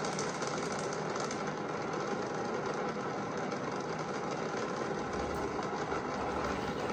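Saturn V rocket's five F-1 first-stage engines running in flight: a steady, crackling rumble with no break.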